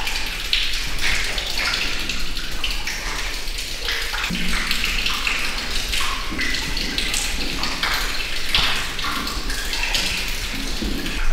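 Water running and splashing, mixed with rustling and a few low knocks from someone climbing a rusty metal ladder.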